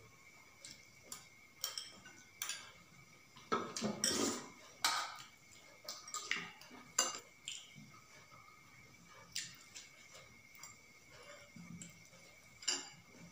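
Metal spoons clinking and scraping against ceramic soup bowls and steel plates during a meal: scattered sharp clinks, busiest about four seconds in.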